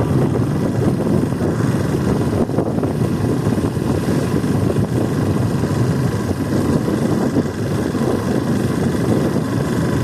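Motorcycle running steadily at riding speed, with heavy wind rushing over the microphone.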